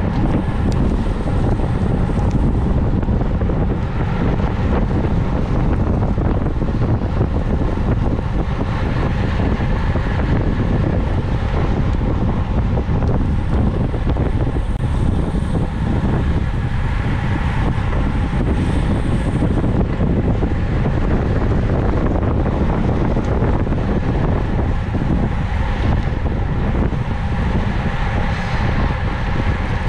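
Steady wind noise over the microphone of a camera on a bicycle ridden at speed.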